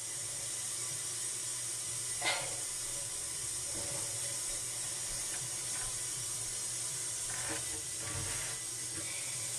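Steady background hiss, with a few faint, brief rustles.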